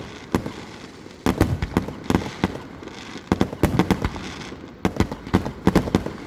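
Aerial fireworks bursting: clusters of sharp bangs in quick succession, several volleys one after another, with echoing rumble between them.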